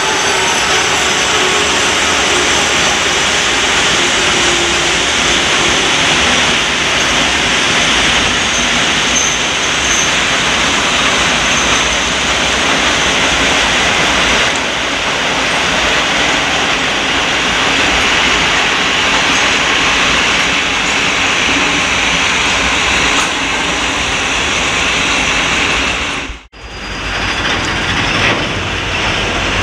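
Freight train of hopper wagons rolling past close by, a steady rumble and rattle of wheels on rail. Near the end the sound cuts out for a moment and resumes with another passing train of open wagons.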